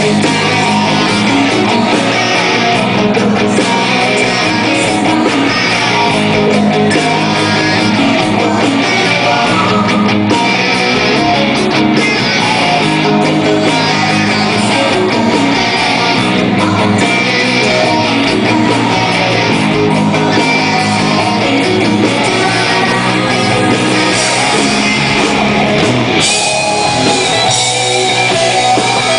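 Live hard rock band playing loudly and without a break, led by electric guitars; the playing changes a few seconds before the end.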